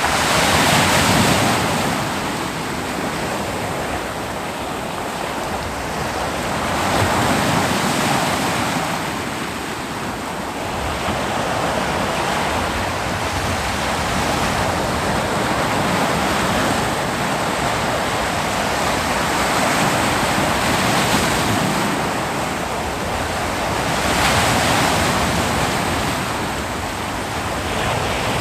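Ocean waves breaking on a beach, a continuous surf wash that swells and eases every few seconds as each wave comes in.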